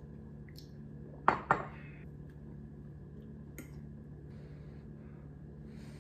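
Tableware clinks: a ceramic mug set down on a wooden table with two sharp knocks close together about a second in, then a lighter tap and a fork scraping on a plate. A steady low hum runs underneath.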